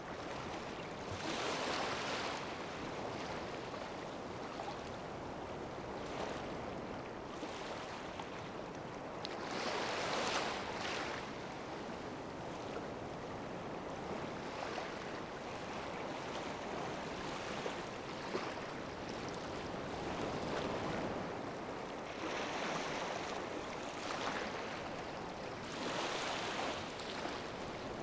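Ocean waves washing onto the shore: a steady rushing noise that swells louder as waves break, about four times.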